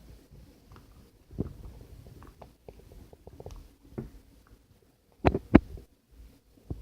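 Slime being squeezed and stretched by hand: soft squelches and small sticky clicks, with two sharp pops a moment apart about five seconds in.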